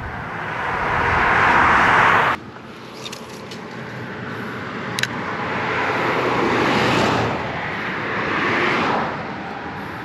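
Cars passing on a highway, their road noise swelling and fading. The first pass cuts off abruptly about two seconds in, and a second, longer pass follows, with a short click about halfway through.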